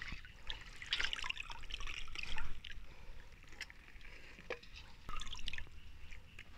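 Wet pieces of raw rabbit meat being lifted from a steel bowl of water and set onto a steel plate: irregular dripping and soft wet splashes with light clicks.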